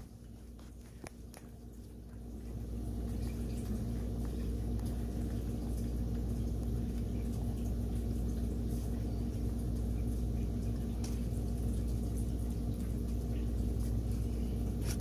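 A cat eating fast from a bowl close to the microphone, with faint chewing ticks over a steady low hum that swells about two seconds in.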